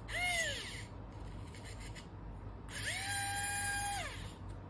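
Pen-style electric screwdriver driving small M2 screws into a plastic servo bracket. A short whir at the start that falls in pitch as it slows, then a longer steady whir from about three seconds in that winds down at the end.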